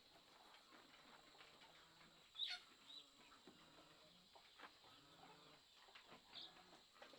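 Near silence: faint outdoor quiet with a couple of brief high animal calls, one about two and a half seconds in and a shorter one near the end.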